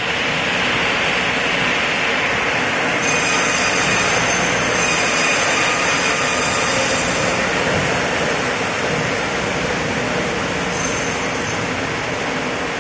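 Horizontal band sawmill running, its blade cutting lengthwise through a log: a loud, steady sawing noise.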